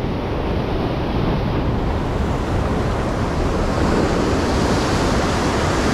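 Sea waves washing onto a beach, a steady rush of noise with wind on the microphone; the wash grows fuller about two seconds in.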